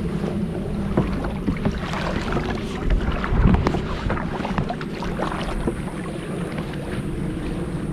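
Water sloshing and splashing around a Vibe Sea Ghost 130 kayak as it is brought into shallow water, with wind buffeting the microphone. A louder low gust or surge comes about three and a half seconds in.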